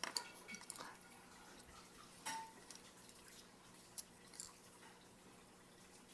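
A few faint clicks and taps of small plastic miniature ships being handled and set down on a table, over a low steady background hum.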